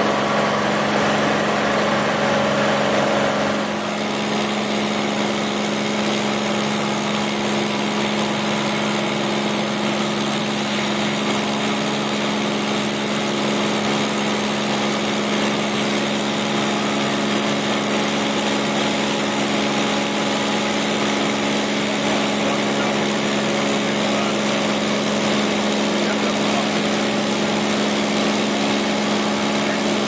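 Cessna 210 Centurion's six-cylinder piston engine and propeller droning steadily in cruise flight, heard from inside the cabin. It eases slightly about four seconds in, then holds steady.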